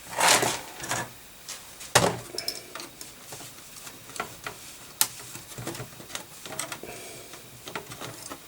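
Light clicks, taps and knocks of a circuit board and small tools being handled on a workbench. There is a brief rustle at the start, sharp ticks about two and five seconds in, and smaller taps in between.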